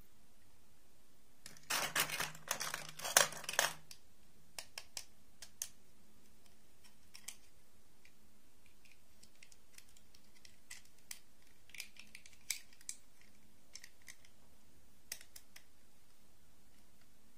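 Small plastic dolls and their clip-on plastic dresses clattering in a wooden box as hands rummage through them: a dense burst of rattling clicks for about two seconds near the start, then scattered light clicks and taps as single pieces are handled.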